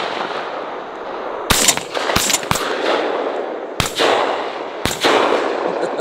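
Shotgun shots at incoming doves: about six in a ragged volley, two close pairs in the first half and two single shots later, each trailing a rolling echo.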